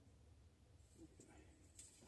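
Near silence: room tone with a few faint small ticks and rustles of handling.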